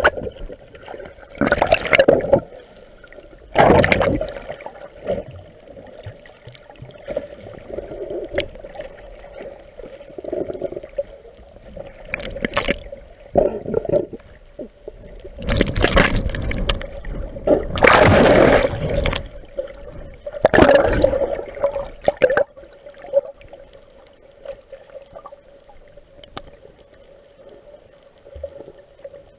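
Water sloshing and gurgling around a camera held underwater, in irregular surges every few seconds, the loudest about two-thirds of the way through, over a steady hum.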